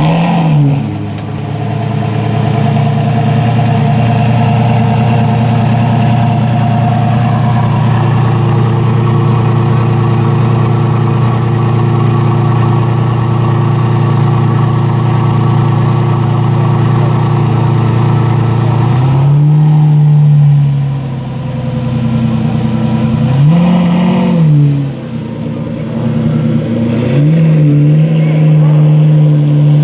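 Lamborghini Murciélago's 6.2-litre V12 settling from a rev into a steady idle, then blipped twice with a rise and fall of pitch a few seconds apart. Near the end the revs rise again and hold higher as the car pulls away.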